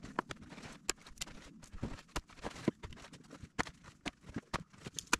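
Small chainsaw cutting a dead, dry branch into short lengths: a low motor hum under a rapid, irregular string of sharp clacks as the cut pieces drop onto the wood pile.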